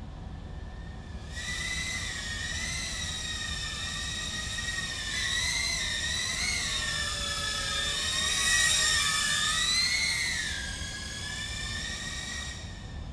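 Tank95-HD 2-inch FPV quadcopter's brushless motors and propellers whining, a high pitch that wavers up and down with the throttle. The whine comes in about a second in, grows louder toward the last third and fades away near the end as the drone flies past.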